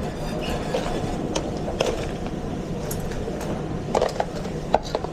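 Busy restaurant kitchen: a steady low rumble with scattered clinks and clatters of pans, plates and utensils, the sharpest knocks about four seconds in and near the end.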